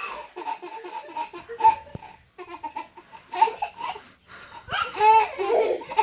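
A small child laughing in repeated high-pitched bursts, with breaks in between.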